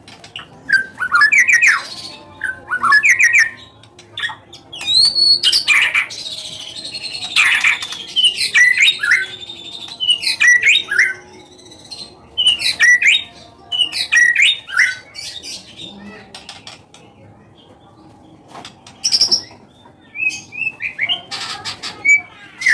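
White-rumped shama (murai batu) singing loud, varied whistled phrases with rapid sweeping notes in bursts and short pauses, quieter for a few seconds past the middle. This is shama song used as a 'pancingan', a provoking call to set other shamas singing.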